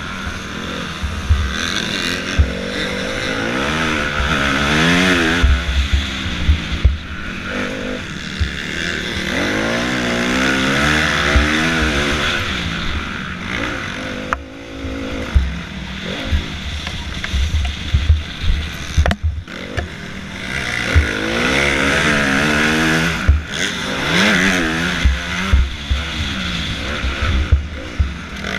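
Motocross dirt bike engine revving up and down repeatedly as the rider accelerates, shifts and backs off round the track, heard close from the onboard camera. Frequent low thumps and knocks run under it.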